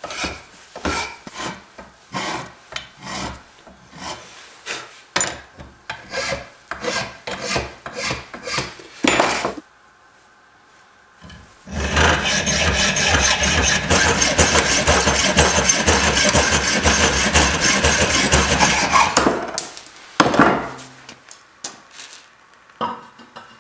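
A hand file rasping on the steel of a sword blade, in repeated strokes about two a second. After a short pause comes a longer stretch of continuous rasping, and then a few last strokes.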